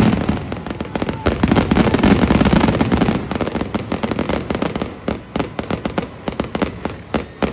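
Fireworks bursting in rapid succession: a dense stream of bangs and crackling with a heavy rumble, thinning to scattered separate pops in the last couple of seconds.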